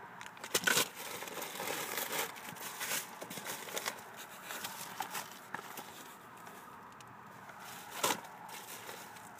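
Bubble wrap and plastic sweet packets crinkling and rustling as a hand rummages through a packed cardboard box, in irregular bursts, loudest just under a second in and again about eight seconds in.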